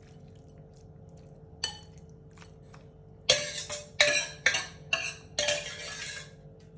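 A metal serving spoon clinking and scraping against a cooking pot as curry is spooned out into a serving bowl: one light clink about a second and a half in, then a run of five or six louder ringing clinks and scrapes from about three seconds on.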